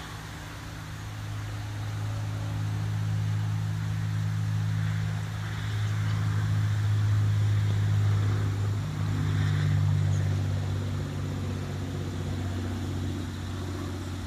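Low, steady engine hum of motor traffic, swelling through the middle and easing a little toward the end.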